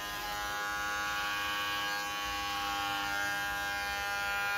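Electric hair clipper running with a steady buzz while trimming body hair, switched off abruptly at the end.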